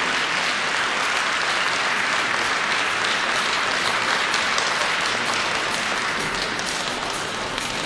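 Audience applauding steadily in an ice arena, easing off slightly near the end.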